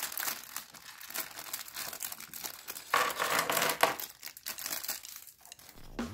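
Thin clear plastic LEGO parts bag crinkling and rustling as it is torn open by hand and emptied, louder for a moment about three seconds in.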